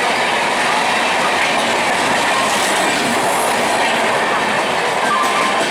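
Express train of LHB passenger coaches passing at speed, its wheels running on the rails with a loud, steady rush of noise.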